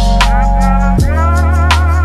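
Lo-fi hip hop instrumental background music: drum hits about every three-quarters of a second over a deep, steady bass line, with a wavering melody.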